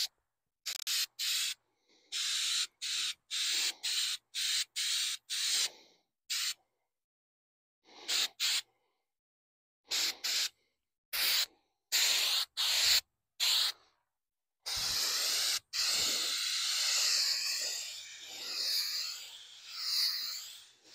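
Aerosol can of textured spray coating hissing in short bursts, about two a second at first. Near the end comes one long pass of about six seconds.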